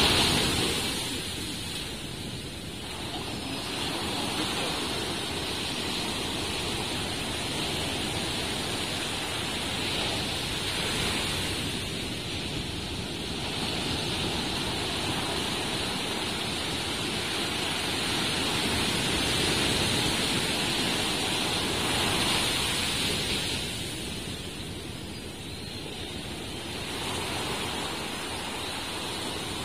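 Sea surf washing onto the shore: a continuous rush of water that swells and eases every few seconds.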